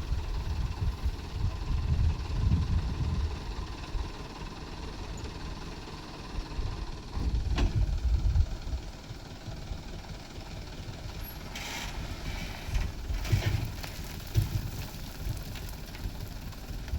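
Diesel engine of heavy road-building machinery running with a low, uneven rumble, with a few brief clatters, the biggest cluster in the last third.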